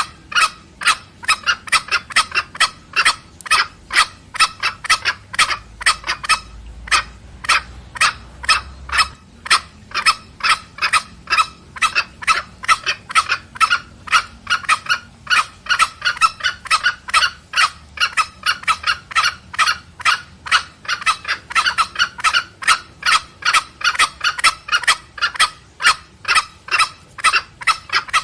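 Green junglefowl, male and female, giving rapid 'petrek' clucking calls back and forth: a continuous train of short, sharp clucks about three to four a second, with a brief lull about six seconds in.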